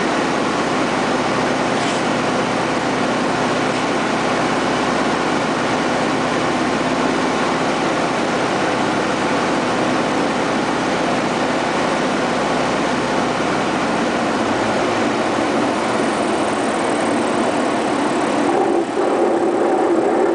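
Van's RV-9A's piston engine and propeller running steadily with wind noise, heard from inside the cockpit on the landing approach. Near the end the deep part of the engine sound fades and the note changes as the plane comes down over the runway, with one short knock shortly before the end.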